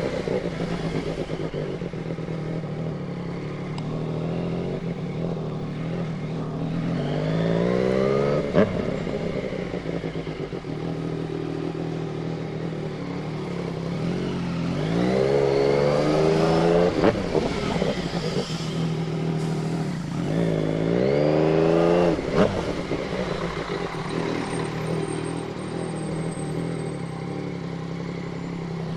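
Yamaha MT-09 three-cylinder motorcycle engine running under way, revving up three times, about a quarter, half and three quarters of the way in, with each climb in pitch ending in a short sharp click as the revs drop.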